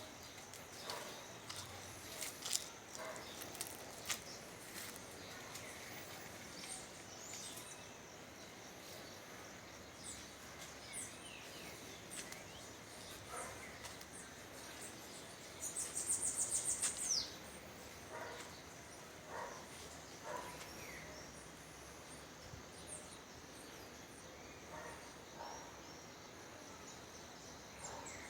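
Quiet outdoor rural ambience with scattered short bird chirps, and one fast, high trill of about a second and a half about halfway through.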